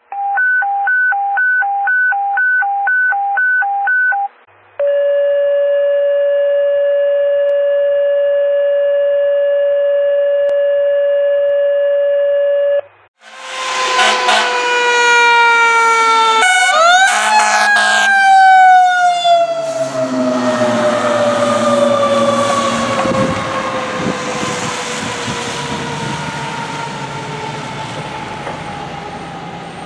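Electronic alert tones: pulsed two-pitch beeps, about two a second, then one long steady tone. About 13 seconds in, a fire engine's mechanical Federal Q siren takes over. It winds up sharply, then coasts down slowly in pitch and fades as the engine passes.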